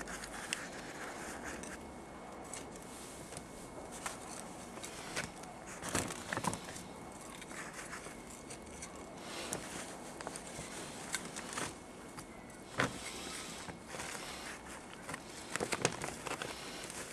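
Rustling, crackling handling noise from the microphone rubbing against a fleece top, with scattered sharp knocks and clicks: a pair about six seconds in, one near thirteen seconds, and several near the end.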